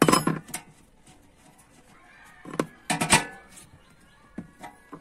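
An open-end steel wrench clicks and clinks against a brass swivel nut as the gas hose is tightened onto the grill's inlet pipe. The clinks come in short clusters: at the start, around three seconds in, and again near the end.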